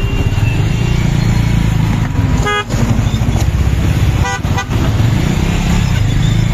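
Steady low rumble of road and wind noise from moving vehicles, with a short vehicle horn toot about two and a half seconds in and another brief toot a couple of seconds later.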